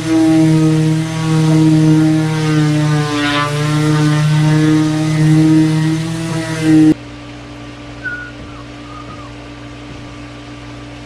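A loud, steady motor drone with a buzzing tone whose pitch sags briefly a few times, as if under load. It cuts off suddenly about seven seconds in, leaving a quiet steady hum.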